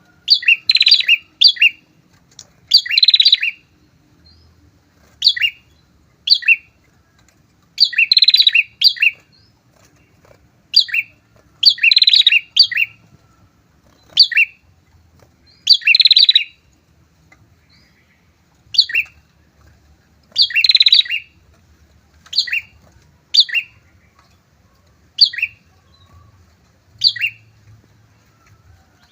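A pair of prenjak (prinias) calling: loud clusters of rapid, sharp chattering notes every few seconds, with single sharp chip notes between them.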